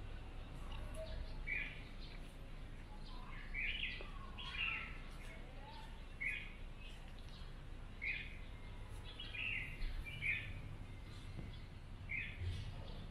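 Birds chirping, short calls repeating every second or two, over a low steady background hum.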